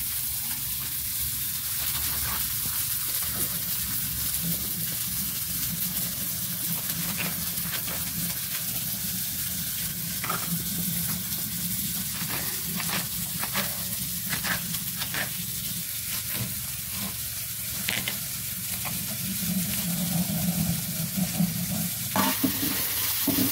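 Onion and chile peppers frying in oil in a pan, a steady sizzle. From about ten seconds in, a knife dicing tomato makes a run of short clicks on a plastic plate.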